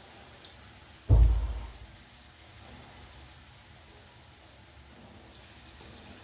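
Oil sizzling steadily as maida bondas deep-fry in a kadai, with a single loud, dull thump about a second in.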